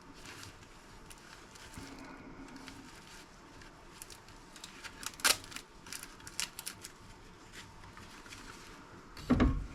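Plastic appliance housing being worked apart by hand: scattered sharp clicks and small knocks, then a louder, deeper thump near the end as the parts give way.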